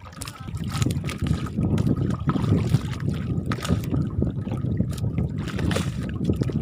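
Wind buffeting the microphone on a small boat at sea, an irregular low rumble that swells about half a second in, with scattered small knocks.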